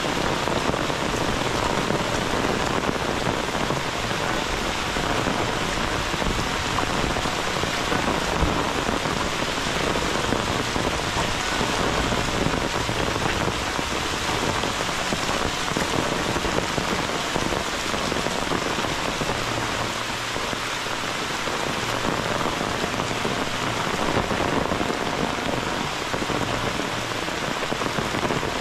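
Heavy rain falling steadily on bamboo and dense foliage.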